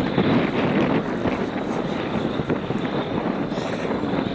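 Wind buffeting the microphone: a steady rushing noise with no distinct engine tone or impacts.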